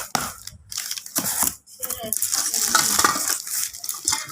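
Clattering and clinking of hard objects being handled, a busy run of short sharp knocks.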